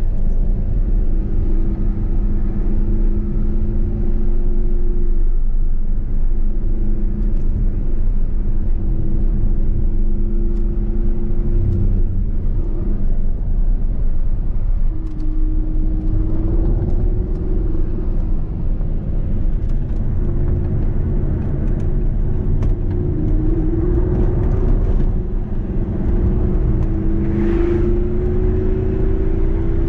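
Audi R8's V10 engine heard from inside the cabin while driving on track, a steady engine note over low rumble. The note breaks off briefly about twelve seconds in, then climbs in pitch several times in the second half as the car accelerates.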